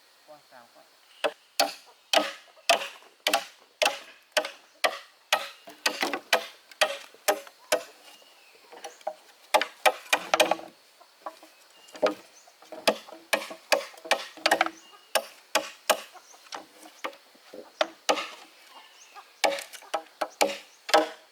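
Repeated chopping strikes of a blade into wood, sharp separate blows coming about one or two a second, with a few short pauses.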